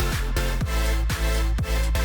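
Electronic dance music with a steady kick drum and a heavy bass line.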